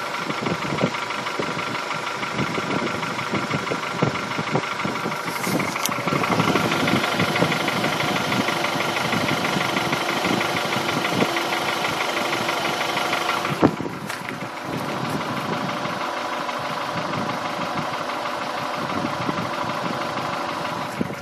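Honda F23A 2.3-litre four-cylinder engine running with a diesel-like knocking clatter, the knock its owner is showing. It gets louder and brighter about six seconds in and drops back after a sharp click near fourteen seconds.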